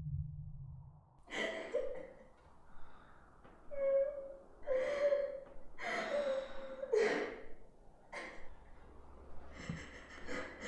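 A person crying: gasping breaths and whimpering sobs, about eight in an uneven row, several with a short held moan.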